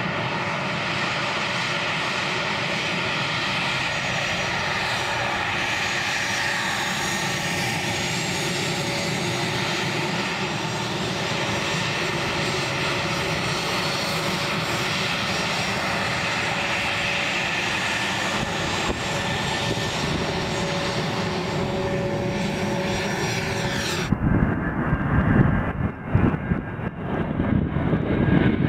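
Fairchild Republic A-10 Thunderbolt II's twin General Electric TF34 turbofans whining steadily at low power while the jet taxis. Near the end the sound cuts abruptly to a louder, uneven jet rumble, the engines at takeoff power.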